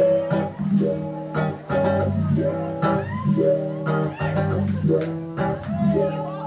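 Live blues-rock band playing, with electric guitar and bass guitar, heard from among the audience in a small club.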